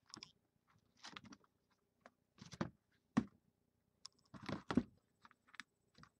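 Sealed cardboard trading-card boxes being handled: a string of light knocks and scrapes as one box is pulled from a stack and set down on a mat, and the other boxes are shuffled back into a stack.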